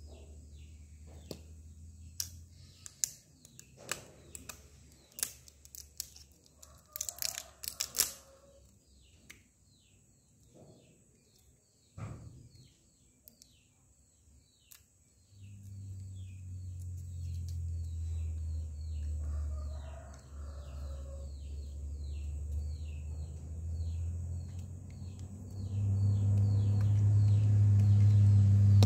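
Small plastic skincare bottles and their packaging being handled and opened, with scattered clicks and crinkles over the first several seconds. A bird then chirps rapidly over and over, while a low steady rumble sets in about halfway through and grows louder near the end.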